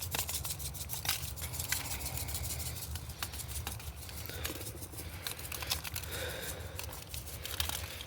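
Food sizzling on a barbecue grill, with irregular sharp crackles and pops.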